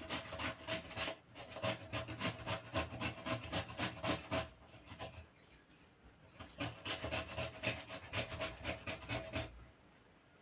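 Raw potato being rubbed back and forth on a handheld grater: quick rasping strokes, several a second, in two runs with a pause in the middle, stopping shortly before the end.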